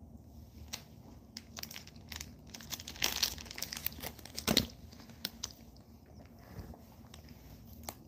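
Thin plastic wrapper crinkling and being crumpled in the hands: a run of sharp crackles, thickest about three seconds in, with the loudest crunch about four and a half seconds in.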